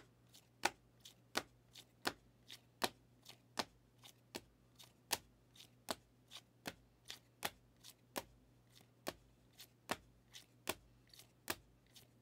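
Rigid plastic trading-card top loaders clicking against one another as a stack is flipped through one card at a time, a sharp click about every half second.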